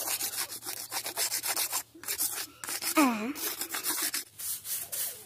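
Hand-held grass broom sweeping a gritty cement floor in quick, repeated scratchy strokes, with a brief pause just before two seconds in. A short vocal call sounds about three seconds in.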